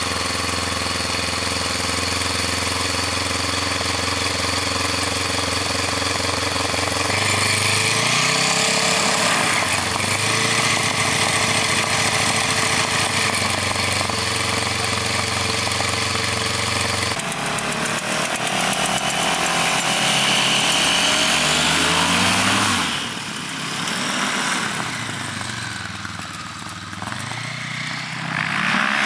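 Yamaha Phazer snowmobile engine on a Kolb Firestar ultralight, running and turning the propeller while it warms up just after starting, first at a steady idle. About seven seconds in the engine speeds up, and in the last few seconds its speed rises and falls several times.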